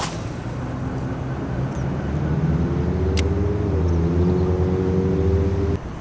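A motor engine humming low and steady, its pitch dipping slightly midway, growing slowly louder and then cutting off abruptly near the end. A faint click about three seconds in.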